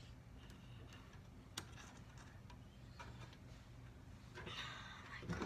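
Light clicks and taps from handling a mesh screen and duct tape, then about a second of rustling and scraping near the end.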